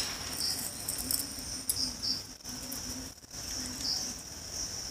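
Crisp fried potato shreds scattered by hand onto noodles on a glass plate, with a few faint light ticks about two seconds in. A steady, high-pitched, insect-like chirring runs underneath.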